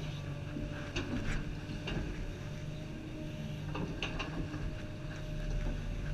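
Komatsu 350 excavator's diesel engine running steadily under a hydraulic load, heard from inside the cab with a constant whine over it. Several short knocks and clanks come through as the boom and bucket work.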